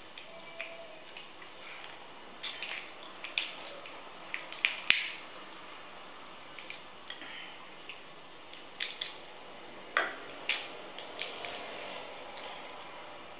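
Cooked crab shell being cracked and picked apart by hand: irregular sharp cracks and clicks, with louder snaps about five seconds in and again about ten seconds in.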